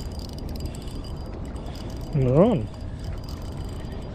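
A man's short wordless vocal sound, like a 'hmm', about two seconds in: held low, then rising and falling in pitch over about half a second. Under it is a steady low rumble.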